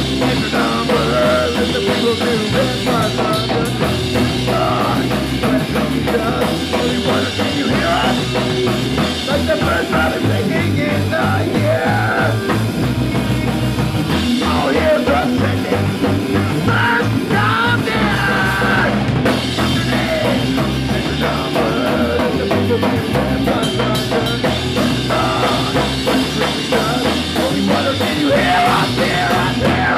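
Punk rock band playing live: drum kit and amplified instruments in a loud, steady, driving instrumental passage.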